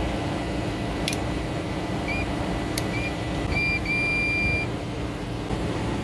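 Short electronic beeps from a digital multimeter as its test probes are put to a fuse on the circuit board: four beeps about a second and a half in to halfway, the last one longest. Under them is a steady machinery hum, with a couple of sharp clicks.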